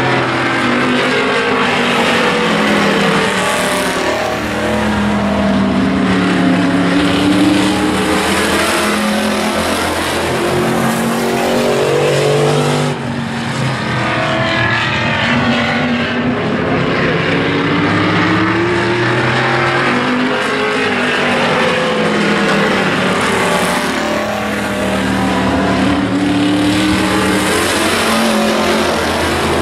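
A field of street stock race cars racing on an oval, several engines at once revving up and down as they go through the turns and along the straights. The pitch of the engines rises and falls repeatedly, with a brief dip in loudness about halfway through.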